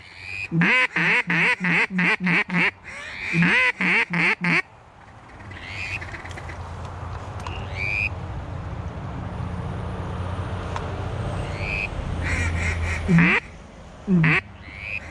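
A mallard duck call blown in a fast, evenly spaced run of loud hen quacks, about three a second, then a short second run. After a stretch of low steady rumble, three more single quacks come near the end.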